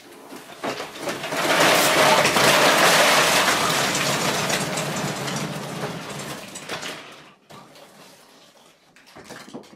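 Dozens of small plastic squeaky toy fruits pouring out of a cardboard box into a floor pit, a dense clatter of many small pieces landing and knocking together. It builds about a second in and tails off after about six seconds into a few scattered taps as the toys settle.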